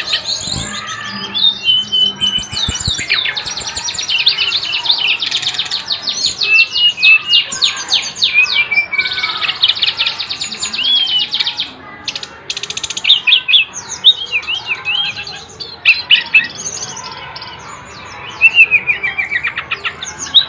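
Brown-chested jungle flycatcher (SRDC) singing in full voice: a long run of fast, high trills and chirps mixed with short whistled phrases, broken by a couple of brief pauses.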